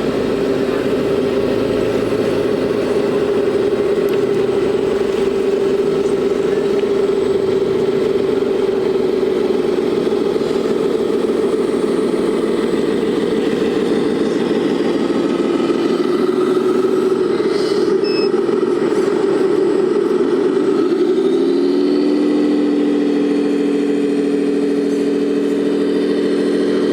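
Radio-controlled construction models running with a steady motor whine and hum. About 21 seconds in the pitch drops, then holds steady at a lower tone.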